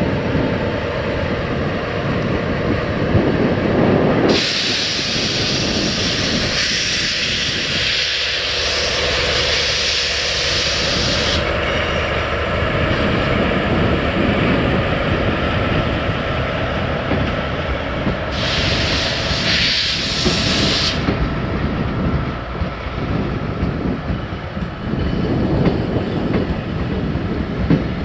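A train of a steam locomotive, a DE10 diesel-hydraulic locomotive and passenger coaches passing at close range: steady rumble of engines and wheels on the rails. Two spells of loud steam hiss sound over it, the first starting about four seconds in and lasting some seven seconds, the second shorter, about two-thirds of the way through.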